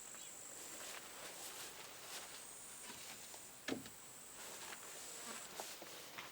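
Insects chirring outdoors in a steady high-pitched note that stops near the end, with a single soft knock a little past halfway.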